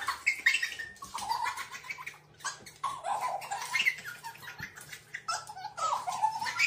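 A baby giggling and squealing in short repeated bursts, with light clicks and taps between them.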